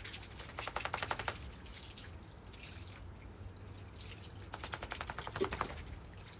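Water spattering and dripping onto wet paving in two short bursts of rapid patter, about half a second in and again about four and a half seconds in.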